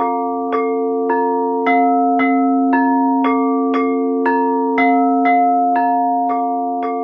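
Glucophone (steel tongue drum) struck about twice a second, its ringing notes stepping between a few different pitches in a slow even pattern, over the steady drone of singing bowls.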